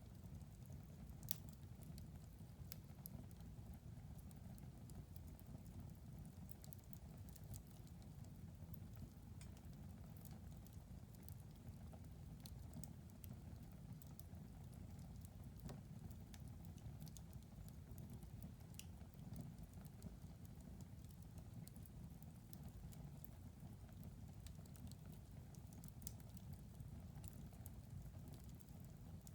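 Faint wood fire crackling in a fireplace: scattered sharp pops and snaps over a low, steady rumble of burning, with one louder pop about a second in.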